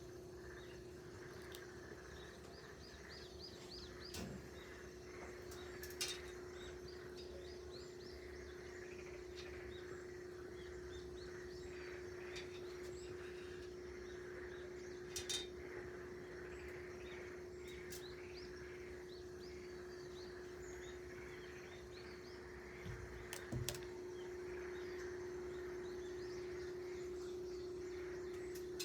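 Small birds chirping in many short, quick notes, over a steady low hum, with a few sharp clicks.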